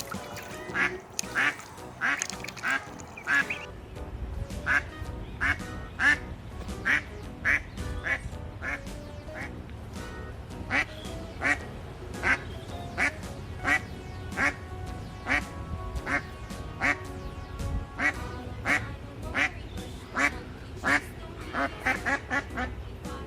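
Ducks quacking over and over in short calls, roughly two a second with brief pauses, over background music.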